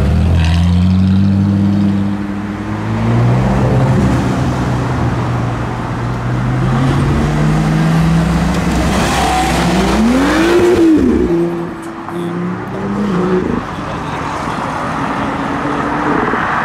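Performance cars driving off one after another, led by a Porsche 911 GT3's flat-six, with engine notes rising as they accelerate. About ten seconds in, one engine revs up and falls back once.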